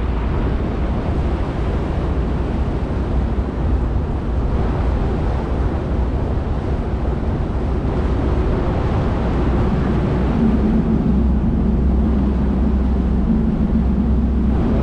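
Harbour tour boat's engine running steadily under way, a low drone over the rush of water from its wake; the hum grows a little stronger about ten seconds in.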